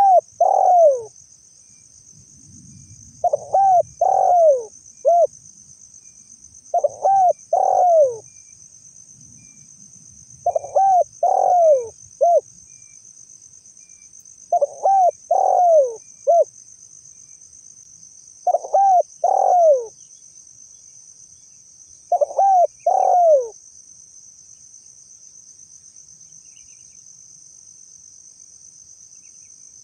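Spotted dove cooing: seven phrases of three or four falling notes each, about one every four seconds, ending about two-thirds of the way through. A steady high-pitched insect drone runs underneath.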